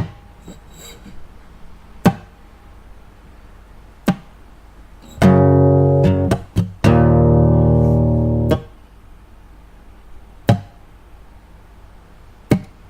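Guitar chords strummed twice, about five and seven seconds in, each ringing for a second or two before being cut off sharply. Short sharp clicks come roughly every two seconds in between.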